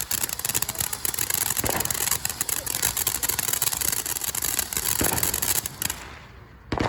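Ground fountain firework spraying with a hiss and dense, rapid crackling that dies away about six seconds in, followed by one sharp bang at the very end.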